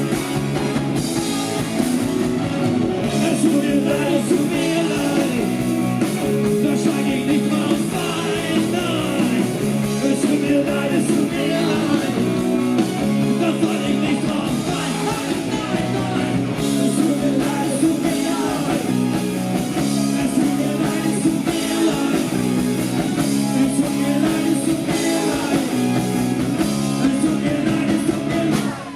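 Live rock band playing loud and full, with electric guitar and drum kit; the music breaks off near the end.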